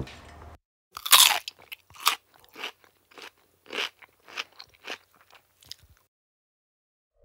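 Crisp cucumbers being bitten into and chewed: about a dozen crunches over some five seconds, the loudest about a second in.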